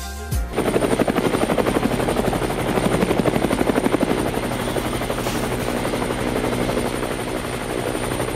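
Helicopter rotor chopping steadily in a rapid, even beat, with a faint high whine over it; it comes in suddenly about half a second in.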